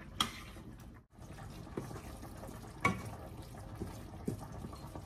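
Steady bubbling of a pot of boiling pasta water, with a few light clicks and knocks of utensils against the pots and pans, the clearest about three seconds in.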